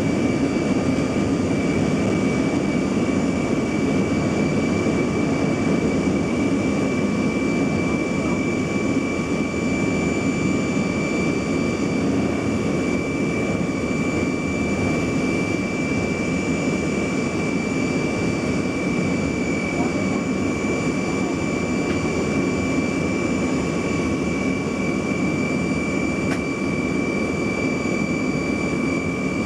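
Ilyushin Il-76's four Soloviev D-30KP turbofan engines, heard from inside the cargo-hold cabin in flight: a steady, even rushing drone with constant high-pitched whining tones over it.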